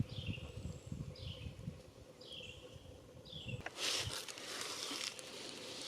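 A bird whistles a short down-slurred note four times, about once a second, over a low thumping rumble. A bit over halfway through, a louder rustling hiss with a couple of clicks takes over.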